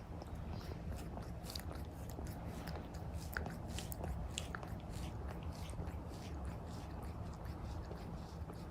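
Domestic cat purring close to the microphone: a steady low rumble, with many small clicks and crackles over it.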